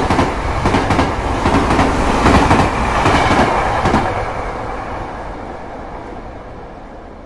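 Plarail toy freight train of plastic tank wagons rattling and clicking along blue plastic track as it passes close by. The rattle fades steadily after about four seconds as the last wagon goes past and the train runs off.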